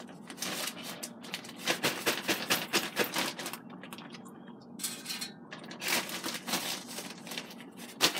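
Plastic zip-top bag crinkling and rustling in bursts as a hand works inside it among breading-coated chicken wing pieces, with a short lull about four seconds in.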